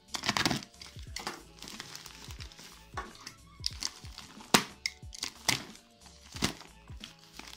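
Background music with held notes and a steady beat, over the crinkling and rustling of packaging being handled and opened.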